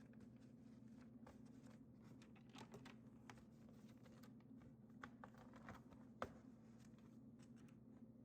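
Faint, scattered desk-work sounds of someone studying: light irregular clicks and rustles, with one sharper click about six seconds in, over a steady low room hum.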